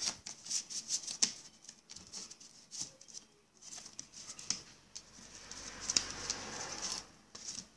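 Hands handling VCD discs and their cardboard sleeves on a wooden desk: scattered light clicks and taps, with soft rustling of the covers.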